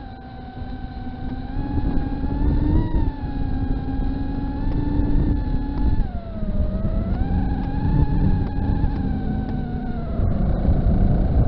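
Small FPV racing quadcopter's brushless motors and propellers whining in flight, the pitch rising and falling with throttle, with a deep rumble of air under it. The pitch sags about six seconds in, then climbs back.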